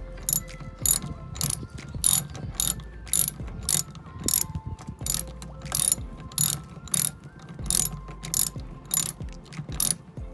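Small socket ratchet clicking in short bursts, about two a second, as the handle is swung back and forth to undo a screw in a car's wheel-arch trim.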